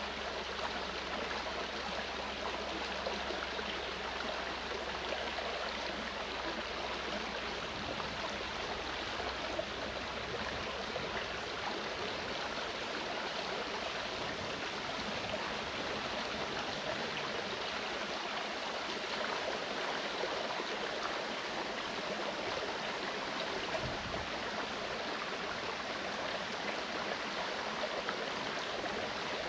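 Clear mountain stream flowing, a steady rush of running water.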